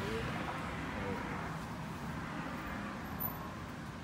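Steady background noise of an auto repair shop, with faint distant voices near the start and about a second in.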